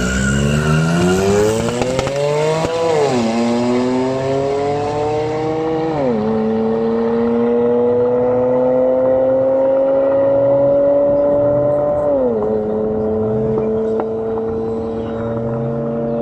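A Porsche 911 Turbo S and a 580 hp Golf Mk3 launching in a drag race and accelerating hard away. The engine note climbs and drops sharply at each upshift, about three, six and twelve seconds in, each gear climbing more slowly than the last.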